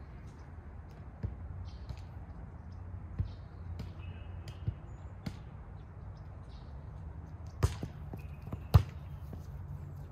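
A volleyball being struck during play: a few sharp slaps spread out, with the two loudest about a second apart near the end, over a steady low rumble.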